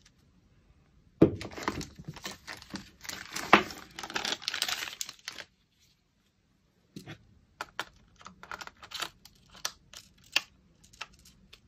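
Thin plastic bag crinkling and rustling as it is pulled open, with a couple of sharp snaps. After a short pause come a string of small plastic clicks and taps as the battery is fitted into the Sony A6000's battery compartment.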